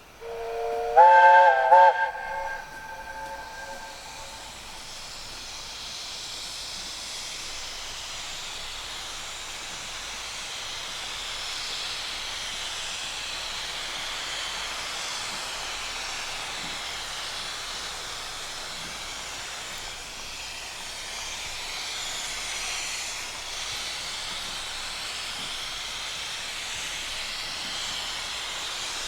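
A miniature 15-inch gauge steam locomotive sounds a short whistle of several tones together, stepping up in pitch about a second in, then steam hisses steadily for the rest of the time.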